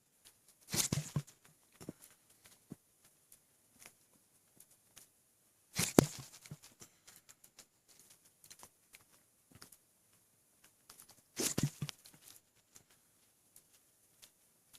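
A person hiccuping three times at a steady pace, about five seconds apart, each hiccup short and sudden, the middle one the loudest; the hiccups come from an over-full stomach after overeating and drinking a lot of water. Faint small clicks and rustles in between.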